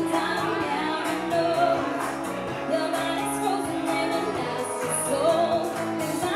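Pop dance music with a steady beat, and a woman singing over it into a microphone.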